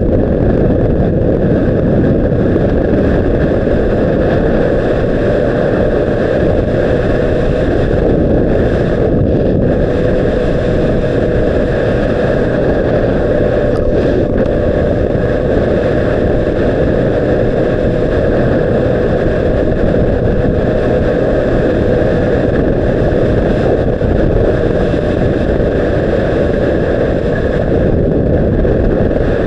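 A 2006 Honda CBR600RR's inline-four engine holding a steady note at constant speed, largely buried under loud, steady wind rush on the action camera's microphone.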